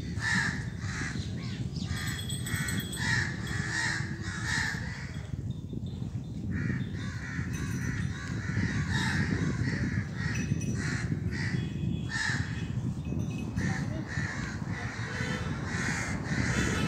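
Crows cawing repeatedly, many short harsh calls overlapping throughout, over a steady low background rumble.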